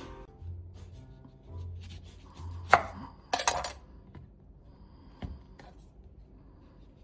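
A knife knocking on a cutting board a few times while cutting apple, the loudest stroke a little under three seconds in and a quick cluster just after, over faint background music.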